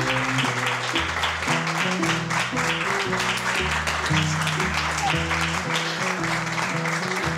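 Background music with a steady bass line, with a crowd clapping over it.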